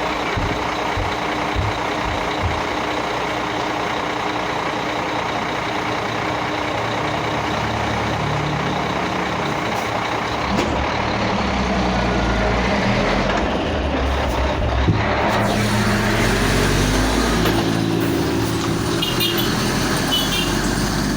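Heavy vehicle engine working, its low running note building from about seven seconds in and loudest around twelve to fifteen seconds, with a few short high beeps near the end.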